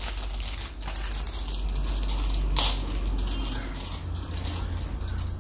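Plastic parts bag crinkling and rustling as it is handled, with one sharper crackle about two and a half seconds in.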